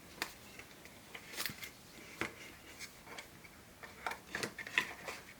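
Scattered small clicks and light rustles of packaging and printed leaflets being handled, with a cluster of sharper clicks near the end.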